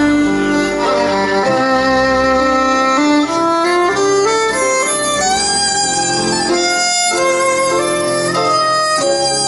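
Violin playing a slow melody of long held notes that step up and down, over a low sustained accompaniment.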